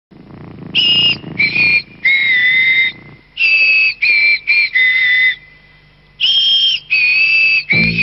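Budgie whistling a tune: a run of clear, held high notes, each a fraction of a second to a second long, with short breaks between them. Music with deeper notes comes in just at the end.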